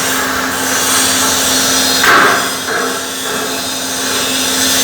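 Electric arc welding: a steady crackling hiss over a constant low hum from the welding machine, swelling louder about two seconds in.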